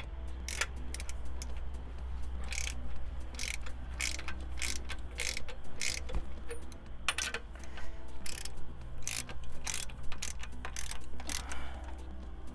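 Hand ratchet wrench clicking in short irregular runs as bolts on the cylinder-liner hold-down plate are backed off. A steady low hum runs underneath.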